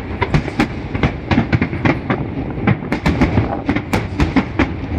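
Aerial fireworks bursting in quick, irregular succession: many sharp bangs over a continuous low rumble.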